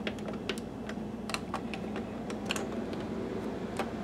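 Plastic buttons on a Sharp XV-Z2000 projector's control panel clicking as they are pressed in a sequence to reset the lamp timer. There are about ten irregular clicks, some in quick pairs, over a steady low hum from the running projector.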